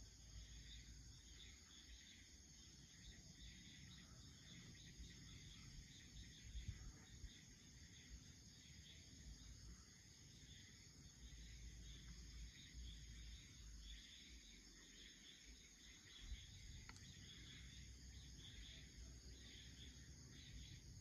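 Faint evening insects, crickets among them, chirring steadily, over a low rumble.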